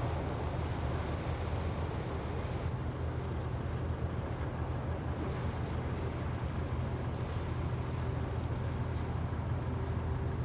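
Cargo ship passing under way: a steady low drone from its engine and propeller, with the wash churning at the stern.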